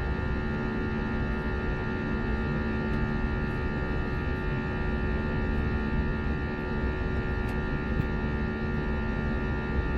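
Airbus A321 cabin noise while airborne: a steady jet-engine drone with several constant whining tones over a low rumble.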